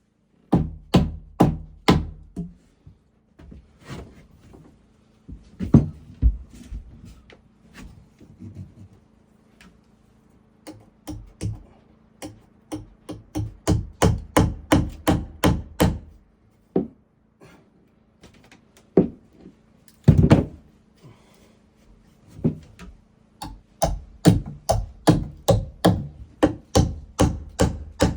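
Hammer driving nails into wooden framing: runs of quick, sharp blows, about two to three a second, broken by short pauses. A faint steady hum sits underneath.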